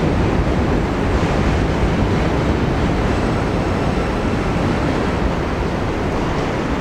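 Subway train rolling slowly along the yard track: a steady rumble of steel wheels on rail, easing slightly near the end.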